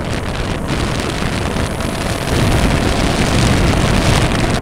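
Road and wind noise of the Ford F-150 Lightning electric pickup towing a tandem-axle enclosed trailer at speed: a steady rush that grows louder a little over two seconds in.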